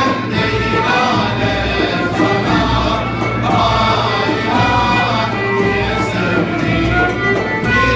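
A male choir sings in unison with a small Turkish ensemble of oud, kanun, end-blown flute, frame drum and violin, in a steady, continuous song.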